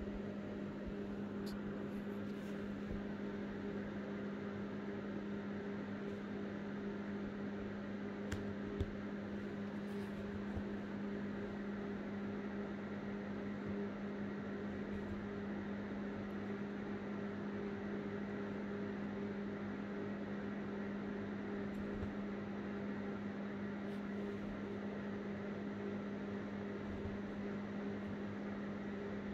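Steady low electrical hum from a running appliance or motor, unchanging throughout, with a couple of faint ticks.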